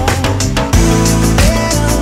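Background music with a steady beat, bass and pitched instruments.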